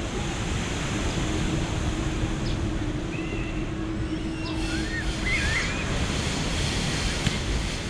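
Two-section 2ES4K electric locomotive running light past, its steady rumble blended with surf and wind on the microphone. A steady hum drops out about five seconds in, and small birds chirp a few times in the middle.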